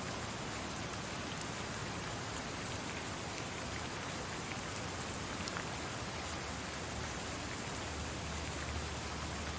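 Steady static hiss, like an untuned television, with a few faint ticks.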